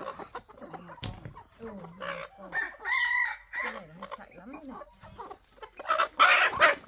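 Brown laying hens clucking in wire-mesh baskets, with one drawn-out call about three seconds in. Near the end the hens break into loud squawking as birds are grabbed from the basket.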